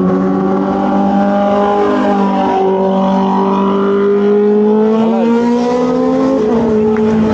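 Several sport motorcycle engines running at a steady raised idle together, their pitches drifting slowly up and down a little.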